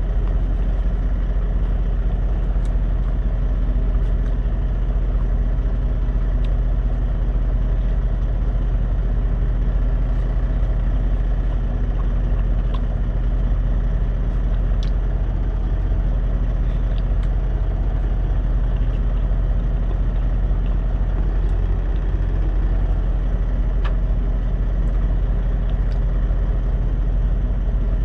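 Semi truck's diesel engine idling, a steady low hum heard inside the cab, with a few faint clicks from hands handling food on a paper towel.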